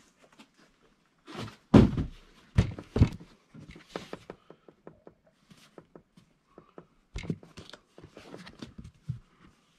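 Large hard plastic pistol case being lifted out of a cardboard box and set down: three heavy thunks in the first few seconds, then scattered small clicks and rustling as it is handled and turned over.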